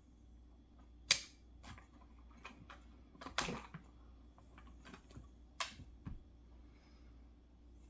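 Scattered light clicks and taps, a sharp one about a second in and a short rustle about three and a half seconds in, from fingers tapping and handling a smartphone. A faint low hum sits underneath.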